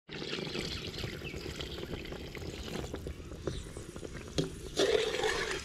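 Water poured from a cup into a large aluminium pot of eggplant curry, splashing steadily into the oil and spices. It is loudest about five seconds in.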